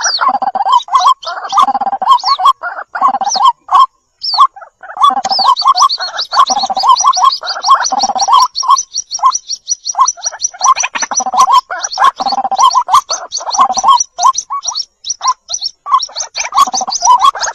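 White-breasted waterhens calling: a dense run of rapid, repeated harsh notes, joined about five seconds in by a thin, high, fast peeping, with a brief pause near four seconds.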